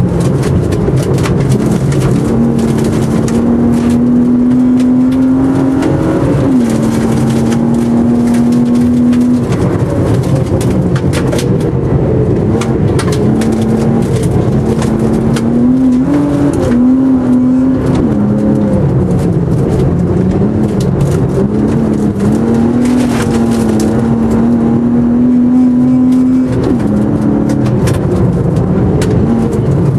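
Race car's engine heard from inside the caged cabin, running hard under load: its note climbs slowly and drops sharply with an upshift about six seconds in and again near the end, and wavers up and down in between. Frequent sharp clicks and knocks sound over the engine.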